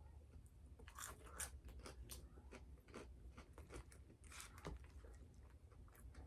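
A person biting and chewing crispy fried chicken close to the microphone: faint, irregular crunches and crackles.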